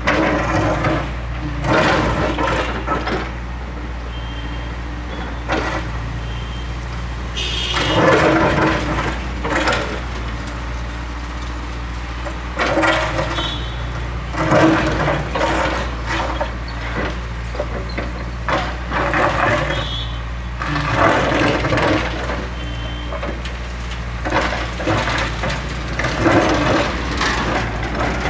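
Tracked excavator's diesel engine running steadily under load, with repeated bursts of its bucket scraping and crunching against concrete slabs as it tries to pick them up.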